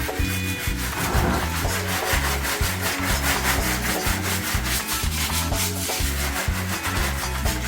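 Continuous rapid scrubbing or rubbing, the sound of parts of a washing machine being scrubbed clean during disassembly cleaning, heard over background music.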